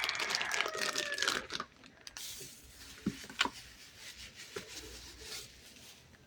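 Crinkling and tearing of packaging being handled for about a second and a half, with a rooster crowing faintly under it at the start. After that come quieter handling and a few light knocks.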